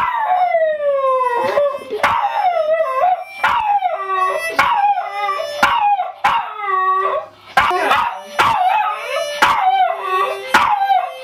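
Small white dog howling along to a harmonica: repeated falling howls and yips about once a second, with the harmonica's held notes between them and sharp clicks scattered through.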